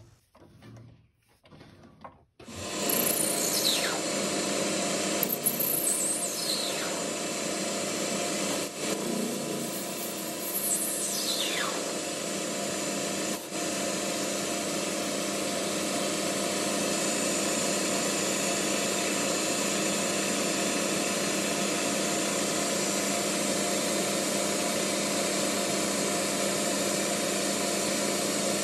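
Boxford BUD metal lathe starting up about two seconds in and running steadily while a cutting tool faces off the end of a brass bar. A few high whines fall in pitch during the first dozen seconds of the cut.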